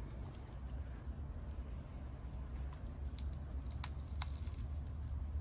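A knife being run around the outer plastic jacket of RG213 coax cable, giving a few faint clicks, over a steady high-pitched whine and a low hum.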